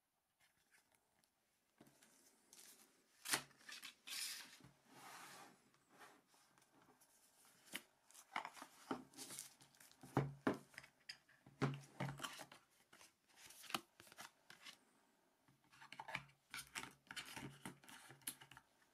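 Quiet handling noises of unboxing a smartphone: cardboard box parts and plastic-wrapped items being lifted, set down and rustled, with scattered sharp taps and clicks, starting about two seconds in.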